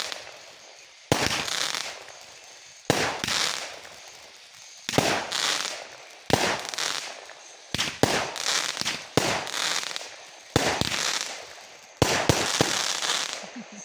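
Consumer fireworks going off in a steady series of about nine sharp bangs, roughly one every second and a half. Each bang is followed by a noisy tail that fades over about a second. The bangs stop abruptly at the end.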